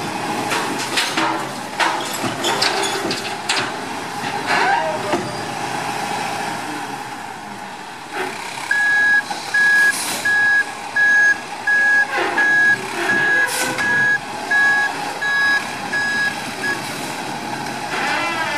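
New Way Mammoth automated side-loader garbage truck emptying a recycling cart, recyclables clattering into the hopper over its running engine for the first few seconds. About halfway through, its reversing alarm starts beeping steadily, about one and a half beeps a second, as the truck backs up, with a couple of short hisses of air.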